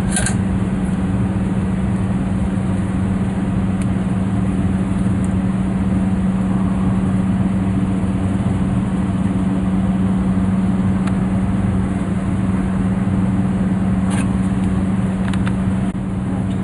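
A steady low mechanical hum throughout, with a few brief clicks of tools on metal fittings near the start, about four seconds in, and near the end.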